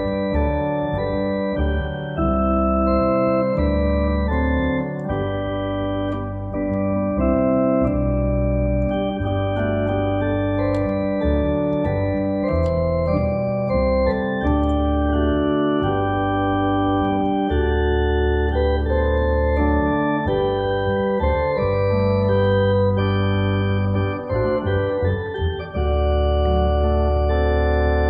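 Two-manual electronic organ playing a slow piece in sustained chords over long held bass notes, the chords changing every second or two.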